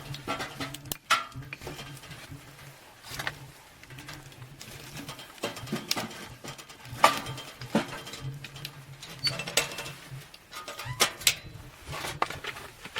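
Scattered knocks and clinks of camp cookware and gear being handled, over a faint low hum that comes and goes.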